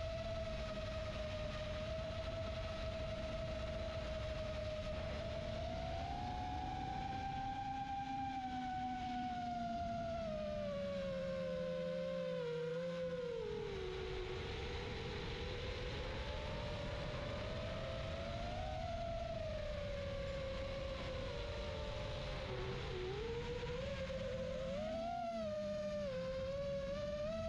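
FPV quadcopter's brushless motors and three-blade 4-inch propellers whining in flight, the pitch rising and falling with the throttle, over a low rushing noise.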